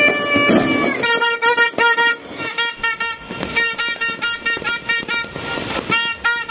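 Plastic New Year's party horn blown in one held blast of about a second, then many short toots of a fixed pitch in quick succession.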